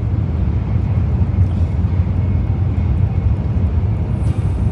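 Steady low rumble of a Shinkansen bullet train running at speed, heard from inside the passenger cabin.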